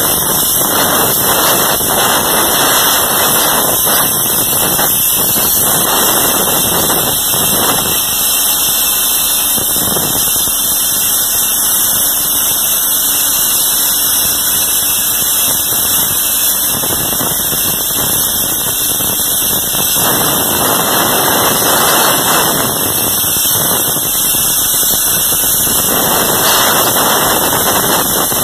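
Plasma arc of an ESAB Crossbow HD CNC cutting table's torch cutting through steel plate: a loud, steady hiss with a high whine.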